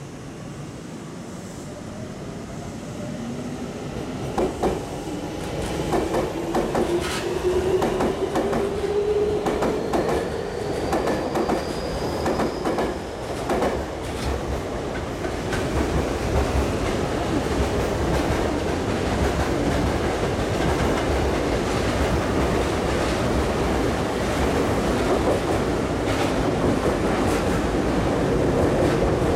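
Tokyu Toyoko Line electric commuter trains running through the station: a motor whine rises in pitch over several seconds while the wheels clack sharply over rail joints and points. The sound then settles into a loud, steady rush of a train running close by.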